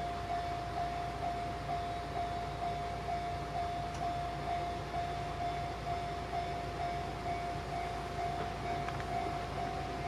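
Japanese level-crossing warning bell ringing, a single electronic tone repeating evenly at a little over two strokes a second, signalling that a train is approaching.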